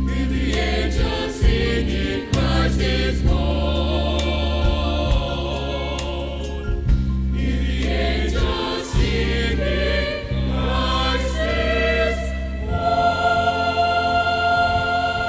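A mixed choir singing a Christmas carol, accompanied on an electronic keyboard with a bass line. About thirteen seconds in, the bass drops out and a steady held chord carries on.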